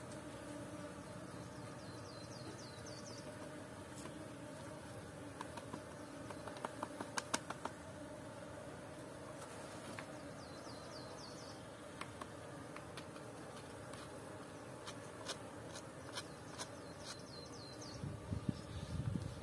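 Honeybee colony buzzing as a steady low hum around its opened, freshly cut comb, with scattered sharp clicks, a cluster of them about a third of the way in and more near the end, and a few short high chirping trills now and then.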